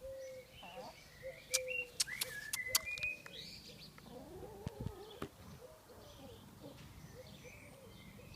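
Chickens clucking and chirping in short repeated calls. A few sharp clicks come in a cluster about two seconds in.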